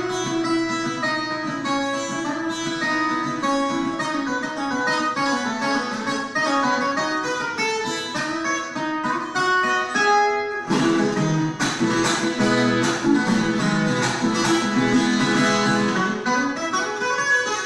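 Viola caipira, the Brazilian ten-string folk guitar, playing a picked melody over ringing low strings. About ten and a half seconds in it changes to a denser, brighter passage of rapid strummed strokes.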